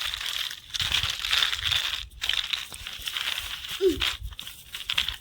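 Small toy car driving over dirt, its wheels making an uneven crackling, crunching noise with short breaks. About four seconds in there is a brief low sound that falls in pitch.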